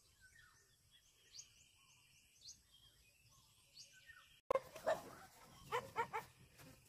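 Faint birds chirping over a steady high insect hum. About two-thirds in, after a cut, come louder close-up sounds of a cow grazing: grass tearing and chewing, and a short wavering bleat-like call.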